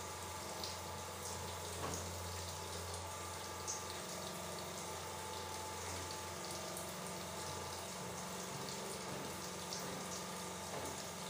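Water running steadily in a tiled shower, with small splashes and drips over a steady low hum.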